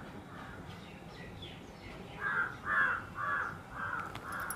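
A crow cawing five times in a quick, even series, about two caws a second, starting about two seconds in.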